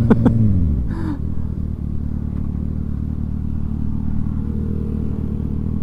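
Kawasaki ZX-6R inline-four engine coming off the throttle. It falls in pitch over the first second, then settles into a steady idle.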